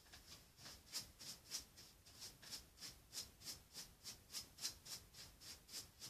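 Paintbrush working acrylic paint in short, even strokes, about three a second, faint and scratchy.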